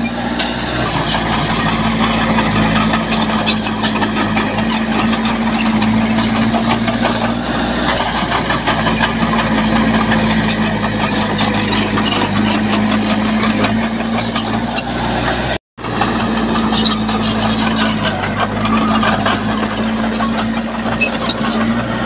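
Heavy diesel engine of earthmoving machinery running steadily, with a constant low engine note. The sound cuts out for an instant about two-thirds of the way through.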